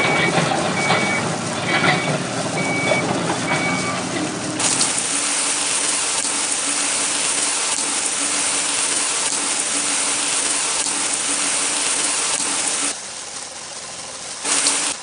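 Toy fire truck beeping about once a second over a low motor noise while its ladder is raised, then a loud steady hiss of water spraying from its hose to put the fires out. The hiss drops away near 13 seconds in and starts again just before the end.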